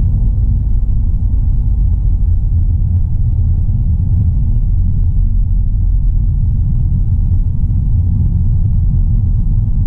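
Driving noise of a 2022 Mazda3 hatchback: a steady low rumble.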